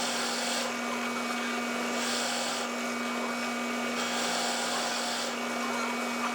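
Wood lathe running with a steady hum while the spinning wood is worked in repeated strokes, a hissing scrape coming and going about every one and a half seconds.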